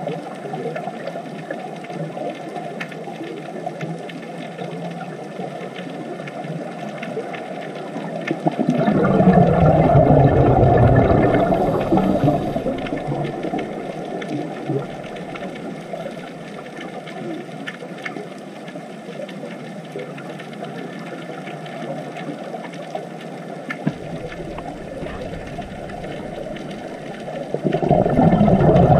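Underwater recording near scuba divers: a steady muffled underwater rush, broken twice by a louder, deeper burst of bubbling from a diver's regulator exhaust, about 9 s in and again near the end.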